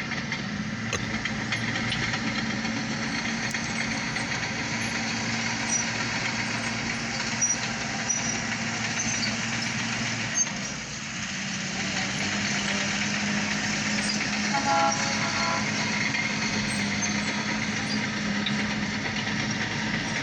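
Short freight train of grain hopper cars rolling past, a steady rumble of wheels on rail. A brief pitched tone sounds about three quarters of the way through.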